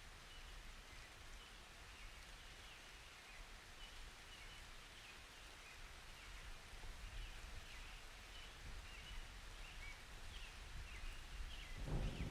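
Faint steady hiss of a light rain storm with small high chirps scattered through it. Near the end a thunder rumble begins to build.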